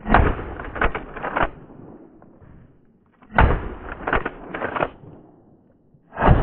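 Three shotgun shots about three seconds apart, each followed by about a second and a half of fainter sharp cracks as the gun is cycled and a spent shell is ejected.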